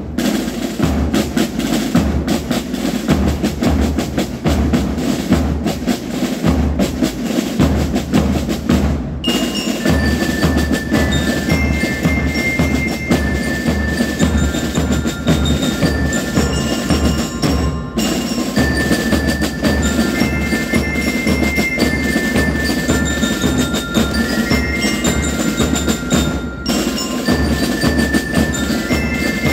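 Marching band drums playing a steady marching beat, joined about nine seconds in by bell lyres playing a ringing melody. The playing breaks off briefly and picks up again a couple of times.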